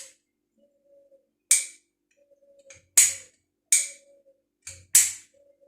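Hand-squeezed plastic pipe cutter closing on a plastic water pipe: about four sharp clicks, a squeeze each, with fainter clicks between, as the blade works through the pipe.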